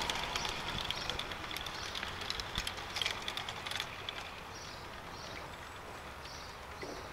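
Rapid clicking and clattering of a model train running along its track, loudest about three seconds in and dying away about a second later. A faint high chirp then repeats at a steady pace.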